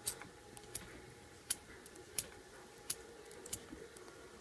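Faint, sharp clicks and light rustling of fingers working the thin insulated twisted-pair wires of a stripped Ethernet cable, untwisting and straightening them; about six small clicks at uneven intervals of well under a second.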